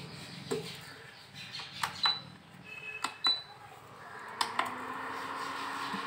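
Metal pan and utensils clinking and knocking, two of the knocks ringing briefly, as the pan of tea water is set on a gas stove. About four seconds in come two clicks, and then the gas burner runs with a steady hiss.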